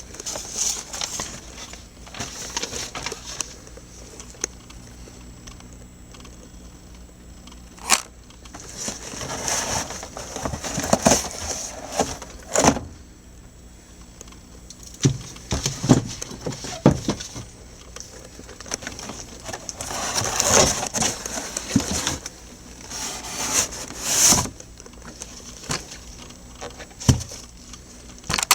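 Irregular clinking, rattling and rustling of objects being handled, with sharp knocks about 8 seconds in, about 13 seconds in and near the end, over a steady low hum.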